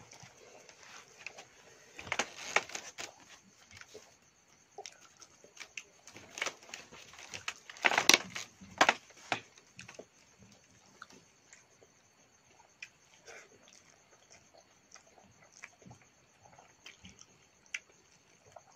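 Close-up eating sounds: chewing and lip-smacking, with fingers squishing and mixing rice against a steel plate, coming in irregular clicks and short bursts that are loudest about two seconds in and again about eight seconds in. A steady faint high chirring of insects runs underneath.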